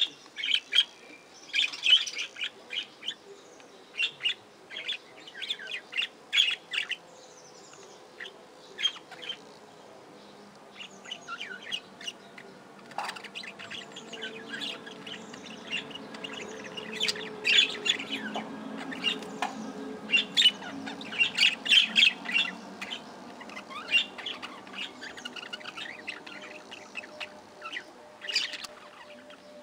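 A flock of budgerigars chattering: many quick, high chirps and squawks in irregular flurries, with a faint low hum underneath in the middle stretch.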